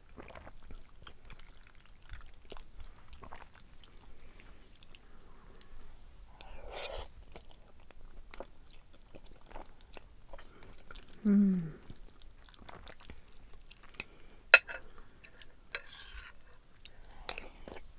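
Close-up eating sounds: chewing and slurping black bean noodles, with small scrapes and clicks of a metal fork in a ceramic bowl. About eleven seconds in there is a short hum from the eater with falling pitch, and a few seconds later one sharp clink of the fork against the bowl.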